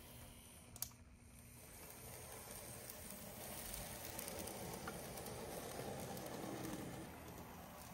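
Märklin Z-scale ETA 150 railcar model running on its track: a faint, fine rattle of its tiny motor and wheels on the rails. The rattle grows louder through the middle and eases off near the end, with one sharp click about a second in.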